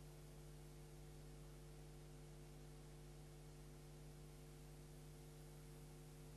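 Near silence: a faint, steady hum with light hiss.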